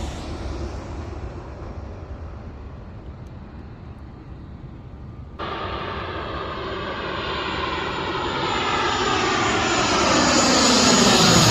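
Airliners landing: at first the fading noise of one that has passed, then, after an abrupt cut about halfway through, the engine noise of another approaching low on its landing approach, growing steadily louder and sweeping in pitch as it nears.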